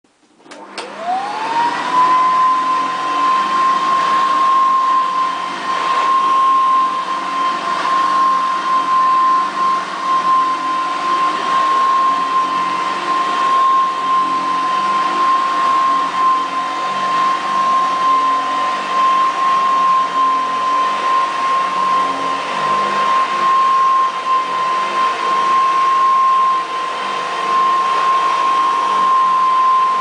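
Hoover Dust-Cup U4302 upright vacuum cleaner switched on with a click, its motor whine rising to full speed within about two seconds, then running steadily as it is pushed back and forth over carpet.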